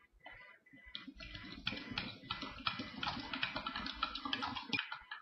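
A spoon stirring fructose into water in a drinking glass, clicking and scraping rapidly against the glass. The stirring starts about a second in and stops just before the end.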